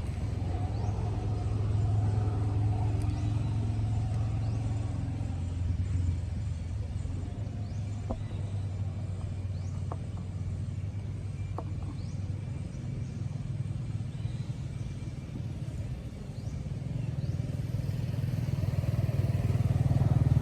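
Low steady rumble of a running motor vehicle engine, swelling and easing, with a few faint clicks.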